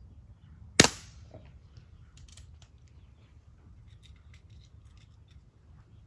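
Single shot from a Crosman 1377 American Classic .177 multi-pump pellet pistol: one sharp crack just under a second in, followed by a scatter of faint light clicks.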